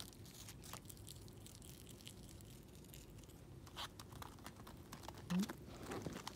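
Richardson's ground squirrel nibbling komatsuna leaves: faint, crisp tearing and crunching of the leaf in scattered small clicks. About five seconds in, a short low rising sound is the loudest thing.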